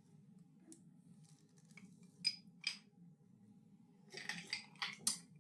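Food containers being handled: two sharp clicks a little over two seconds in, then a short cluster of rustling and clicking near the end.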